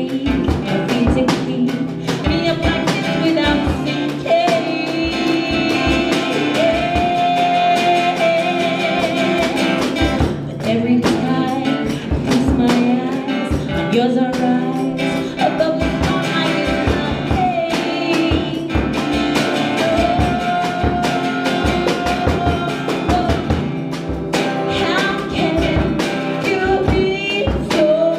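Live acoustic guitar strummed under a woman's singing, with held, bending sung notes, backed by a light drum beat.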